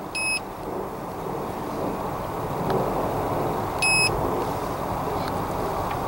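Two short electronic beeps from a handheld OBD-II scan tool as its buttons are pressed, one at the start and one about four seconds in, over a steady low background rumble.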